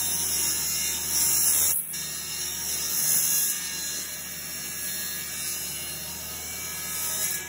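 Table saw running and cutting through a blank of melted HDPE milk-bottle lids cast around an oak core, trimming off its end. It gets louder as the blade bites, about a second and a half in and again around three seconds.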